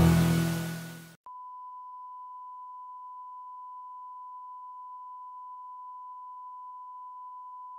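Intro music fading out over the first second, then a steady electronic beep at one unchanging pitch.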